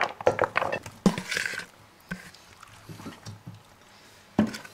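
Chopped raw vegetables tipped from a plastic bowl into a stainless pot, the pieces clattering and rustling for the first second and a half, then a few light knocks and one louder knock near the end.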